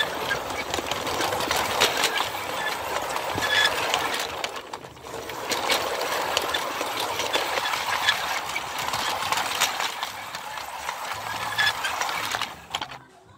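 G scale model train running along its track, heard close up from on board: a dense, steady mechanical rattle with many small clicks of the wheels on the rails. The sound dips briefly about four and a half seconds in and falls away sharply near the end.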